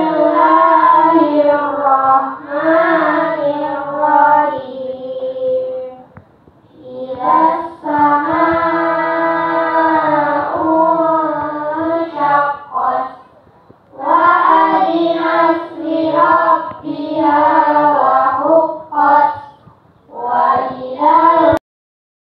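A group of children reciting the Qur'an from memory in unison, in a melodic chant, phrase by phrase with short breaks for breath. The sound cuts out for a moment near the end.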